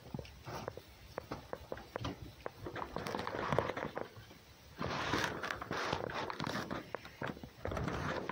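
Animals moving about in loose hay: irregular rustling and scuffing with small clicks, louder in stretches about three seconds in, about five seconds in, and near the end.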